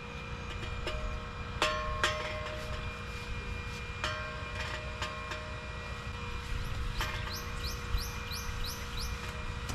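A few sharp metallic clinks and knocks, each ringing briefly, as camp gear and a metal-framed folding camp chair are handled. Near the end a bird calls a quick series of rising chirps, over a steady low rumble.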